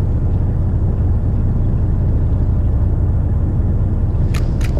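Steady low rumble of a fishing boat's engine running, even throughout, with two sharp clicks near the end.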